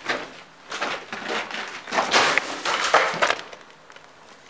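Broken concrete and debris crunching and clattering: a run of irregular knocks and scrapes, loudest about two to three seconds in, then dying down.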